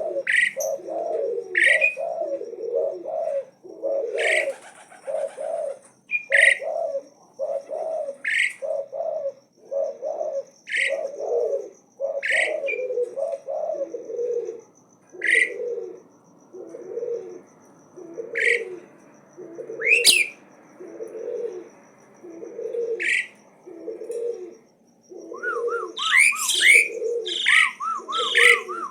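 Javan pied starling singing non-stop: sharp, rising whistled notes about every two seconds over a low cooing note repeated roughly once a second, breaking into a quick run of chirps near the end.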